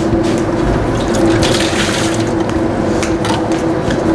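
Spoons scraping and clicking against stainless steel bowls as cottage cheese and grated cheese are stirred together, over a steady background hum.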